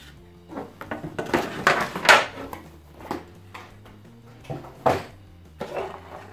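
Stiff plastic packaging being handled: a grey tray crinkling and clattering as a figure's plastic base is worked free of it, in an irregular run of rustles and knocks that is loudest about two seconds in, with a few sharper knocks later.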